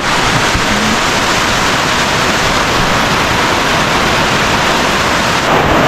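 Heavy rain pouring down steadily in a storm, a dense, even hiss.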